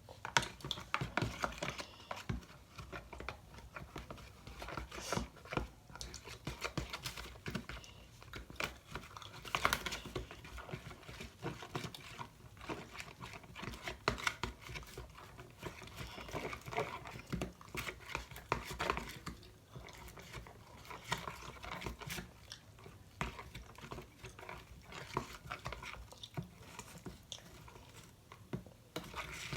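Slime being kneaded and squeezed by hand: an irregular run of sticky squishes, crackles and small pops.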